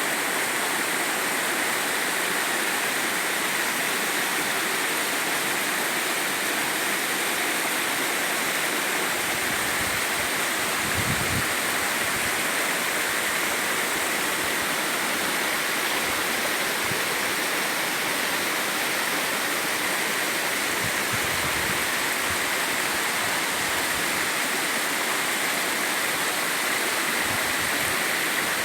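Mountain valley stream water flowing, a steady, even rushing noise.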